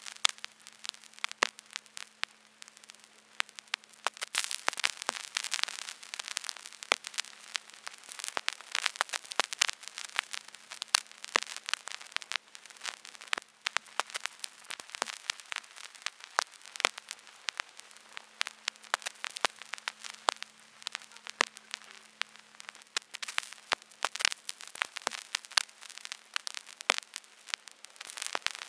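Vinyl record surface noise: irregular crackles and pops over a soft hiss, with a faint steady hum underneath.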